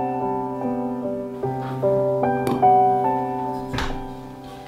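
Slow, gentle solo piano background music, notes ringing on in a repeating broken-chord pattern, with a few faint clicks over it.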